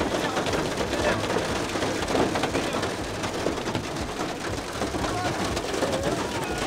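Heavy storm rain beating on the roof and windows of a vehicle, heard from inside the cabin as a dense, steady hiss thick with sharp individual hits.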